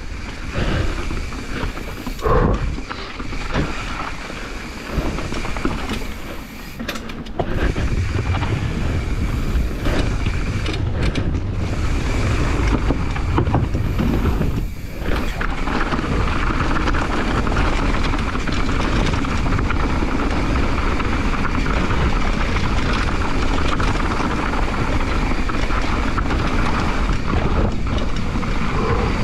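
Downhill mountain bike riding fast down a dirt trail: wind rushing over the microphone, mixed with the noise of the tyres and bike over rough ground. About seven seconds in it turns into a steadier, heavier rumble.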